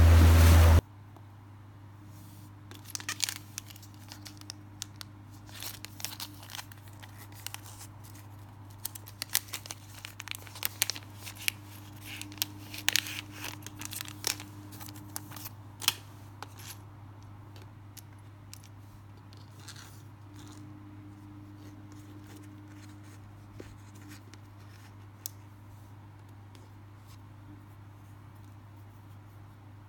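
Wind and water noise on a boat at sea, cut off abruptly under a second in. Then small scattered clicks, taps and crinkles of hands handling fishing line, a three-way swivel and a plastic tackle packet, busy for about fifteen seconds and then sparse, over a low steady hum.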